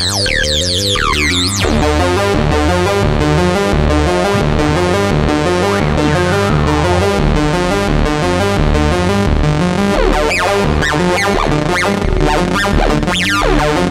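Eurorack modular synthesizer patch voiced by a SoundHack Spectraphon: a deep sub-oscillator bass under a dense, rapidly stepping cluster of spectrally modulated harmonic tones. The texture thickens about a second and a half in, and gliding pitches sweep through the upper range twice.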